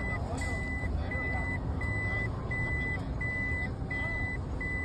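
Vehicle reversing beeper: one even high-pitched tone repeating about one and a half times a second, over a low engine and traffic rumble.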